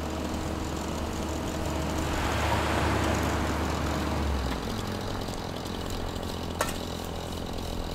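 Heavy machinery's diesel engine running steadily with a low hum that shifts in pitch about halfway through. A single sharp knock comes near the end.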